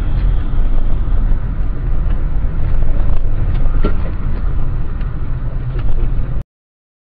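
Car driving at highway speed, heard from inside the cabin by a dashcam: a loud, steady low rumble of road and engine noise. It cuts off suddenly near the end.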